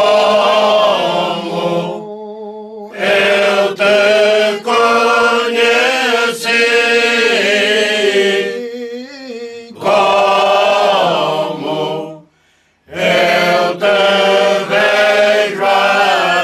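Cante alentejano sung a cappella by a choir: slow, long-held notes in several-voice harmony, with short pauses between phrases about two, nine and twelve seconds in.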